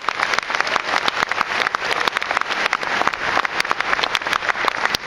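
Audience applauding, a dense patter of hand claps with a few sharp single claps standing out.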